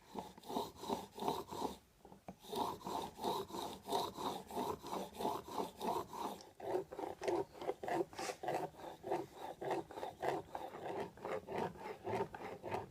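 A plane blade held in a honing jig, rubbed back and forth on a sharpening stone to put a micro bevel on its edge. Quick, even strokes come about three a second, with a brief pause about two seconds in.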